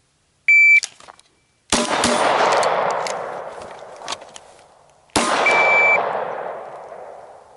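A short, high electronic beep, then a quick string of pistol shots with metallic clangs of rounds striking steel plates. A single further shot comes about five seconds in. Each trails off slowly.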